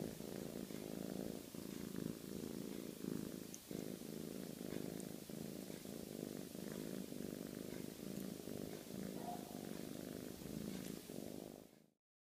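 Siamese kitten purring steadily, a continuous pulsing purr. It cuts off abruptly near the end.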